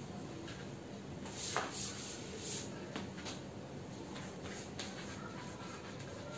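Chalk writing on a blackboard: faint scratching strokes with a few light taps.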